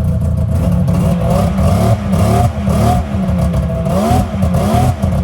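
Freshly rebuilt Yamaha Venture snowmobile's three-cylinder two-stroke engine being blipped, its pitch rising and falling back about five or six times.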